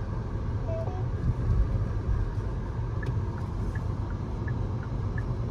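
Steady road and engine rumble inside the cabin of a moving 2020 Hyundai Sonata. About three seconds in, the turn-signal indicator starts ticking, about three clicks a second.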